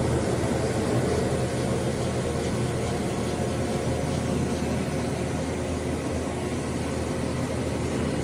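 Roto 360 XL rotary carpet extraction tool running steadily: its motor spinning the cleaning heads across wet carpet, with the even rush of vacuum suction through the hose.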